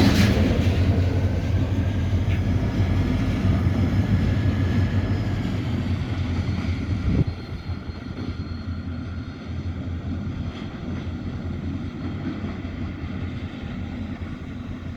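Diesel locomotive engine running with a steady low hum, slowly fading away, with a short knock about seven seconds in after which the sound drops suddenly.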